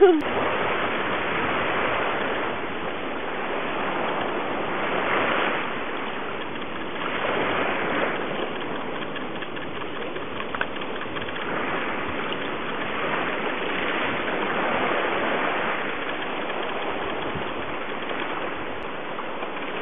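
Ocean surf: a steady rush of breaking waves that swells and eases every few seconds.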